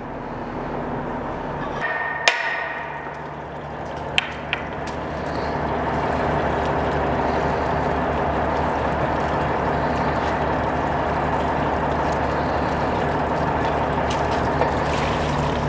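Water gushing out of the open end of the pipe test fixture as it is pumped through, a steady rushing noise with a low hum under it that builds over the first few seconds and then holds even. A couple of sharp metal knocks come about two and four seconds in.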